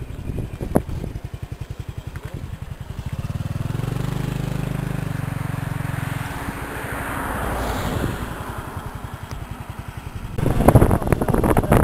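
Motorbike engine running steadily while riding a mountain road, its note louder and higher for a couple of seconds in the middle. Loud rough bursts of noise near the end.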